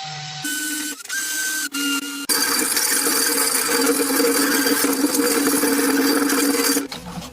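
A small electric power tool running steadily, heard in several short edited segments; the longest, about two seconds in, lasts nearly five seconds with a hissy, abrasive edge. It cuts off sharply near the end.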